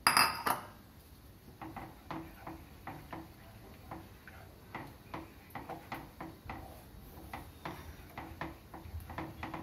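A utensil tapping and scraping against a metal pan while stirring a liquid, in light, irregular clicks about two a second, with one louder clatter at the very start.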